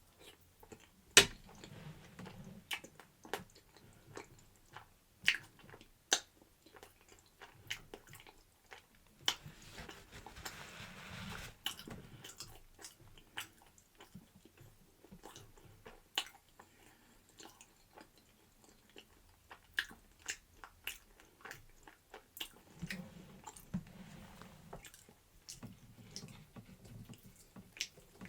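A person chewing and biting food close to the microphone, with many sharp clicks and taps throughout.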